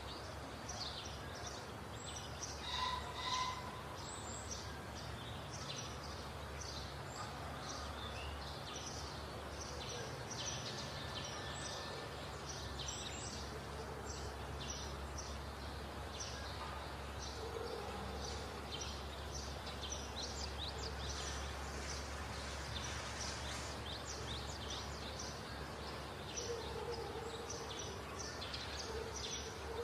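Outdoor woodland ambience: a steady low background rumble with many short, high bird chirps scattered through it.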